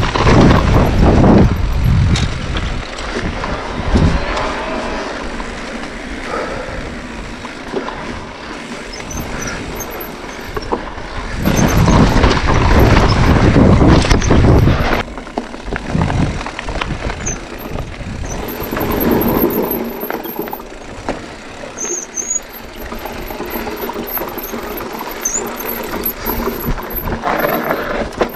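Mountain bike descending a rocky dirt trail: wind buffeting the on-bike camera's microphone over the tyres crunching and the bike rattling on stones. The wind rumble swells loudest near the start and again about halfway through.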